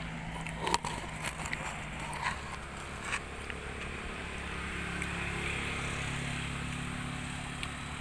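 A motor vehicle engine running steadily at low speed. In the first three seconds there are sharp knocks and rubbing from the handheld camera being moved.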